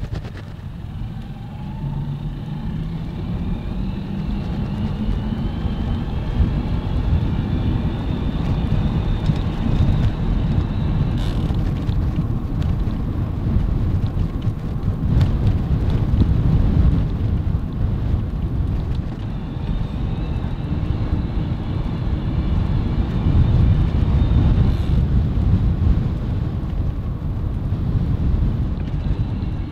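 Wind buffeting the microphone of a camera mounted on a moving road bicycle, a heavy low rumble that swells and eases throughout.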